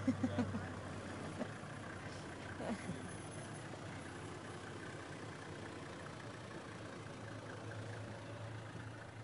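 Game-drive vehicle's engine idling with a low steady hum that fades about a second and a half in and comes back near the end, with a couple of brief voice fragments early on.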